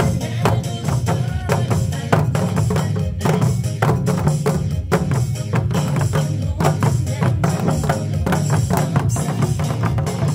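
An ensemble of Korean buk barrel drums played in a fast, driving rhythm, with dense strokes and no break.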